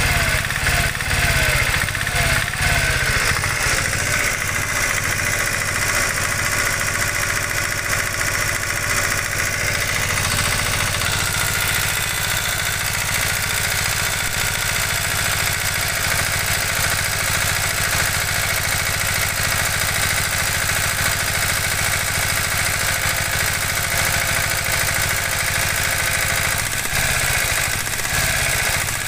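Piaggio Ape three-wheeler's single-cylinder engine running steadily at idle after a full rebuild. The sound stays even, with a slight change in tone about ten seconds in.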